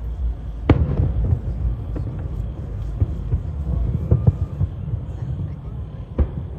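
Fireworks bursting: a string of sharp bangs, the loudest about a second in and another near the end, over a steady low rumble.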